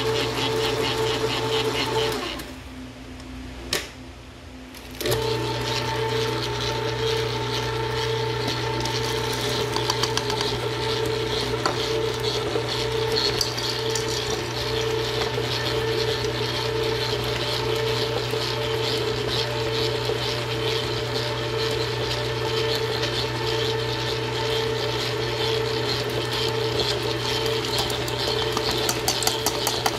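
Hobart N50 stand mixer running with a steady hum as its beater works stiff cookie dough. About two seconds in it stops for roughly three seconds, with a single click during the pause, then starts up again and runs on steadily.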